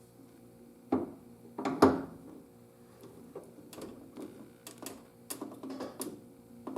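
A string of sharp metallic clicks and knocks from hand tools and small metal parts being worked, with the loudest pair about one and two seconds in and a quicker cluster later on. It fits a nutsert being crimped into a plastic door handle.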